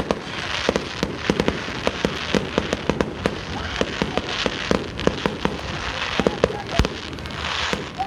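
Fireworks display: many sharp bangs and pops at irregular intervals, several a second, over a continuous hiss.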